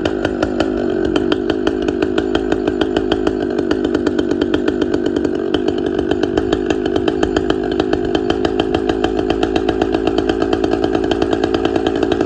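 Two-stroke chainsaw engine running steadily at idle with an even firing pulse, while the carburetor's low-speed mixture screw is turned in clockwise to lean out the idle.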